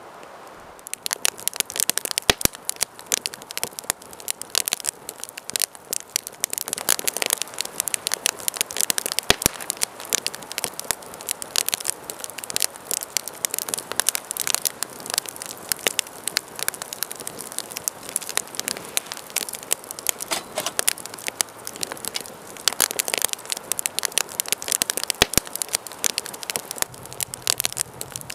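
Wood fire crackling, a steady stream of sharp snaps and pops starting about a second in.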